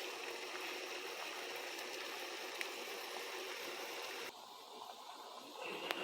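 Pot of water with mint, bay leaves and ginger boiling, a steady bubbling hiss that drops off abruptly about four seconds in.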